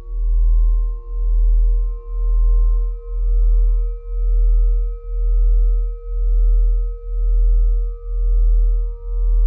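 Ambient electronic sound bed: a deep bass tone swells and fades about once a second under several steady, pure high tones. One of the middle tones drops out about three seconds in.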